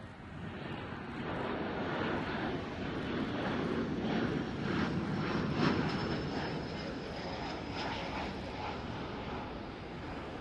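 Embraer KC-390's two IAE V2500 turbofan engines on a low pass, the jet noise swelling to a peak about halfway through and easing off as the aircraft moves away, with a thin high whine near the loudest point.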